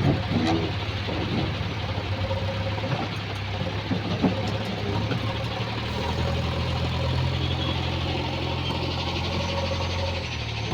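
JCB 3DX backhoe loader's diesel engine running steadily, its low drone growing stronger about six seconds in.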